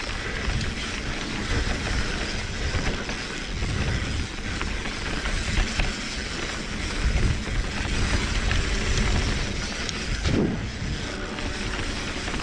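Wind rumbling over the camera microphone and knobby mountain bike tyres rolling over a dirt trail during a fast descent, with occasional clicks and clatter from the bike over bumps.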